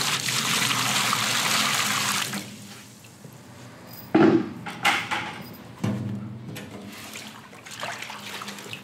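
Bucket of water poured into a steel wheelbarrow already holding water, a loud splashing pour that stops after about two and a half seconds. A sharp thud follows about four seconds in, then a few lighter knocks.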